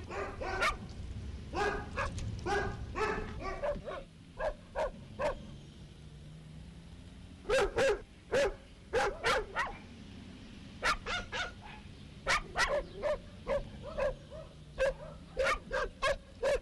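Dogs barking: short, sharp barks in quick runs, with a lull of a few seconds about four seconds in before the barking picks up again.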